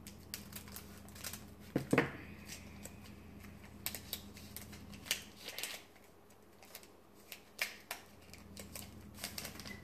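Scissors snipping through a foil trading card booster pack wrapper, loudest about two seconds in, then the crinkly wrapper crackling and cards rustling as they are worked out of the pack.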